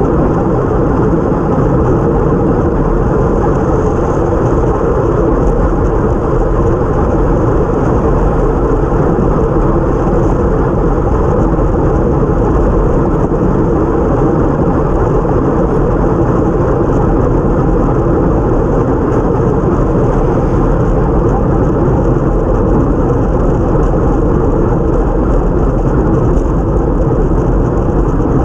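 Steady rush of wind over a bike-mounted action camera's microphone at time-trial speed, mixed with tyre hiss on wet road.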